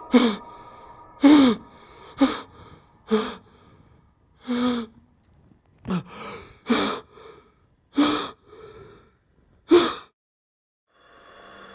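A man gasping for breath in heavy, ragged gasps about once a second, each with a voiced catch that falls in pitch, until they stop about ten seconds in.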